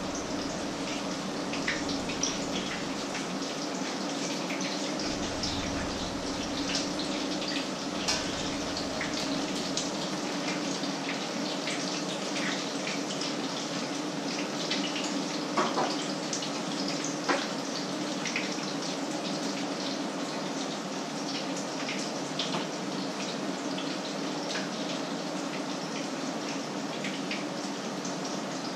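Food frying in a pan, a steady sizzle with scattered crackles and pops, and a few sharp clinks of a utensil against the pan. A steady low hum runs underneath.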